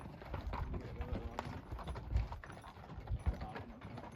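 Clip-clop of steps on a rocky trail: irregular hard clicks and knocks with low thumps underneath.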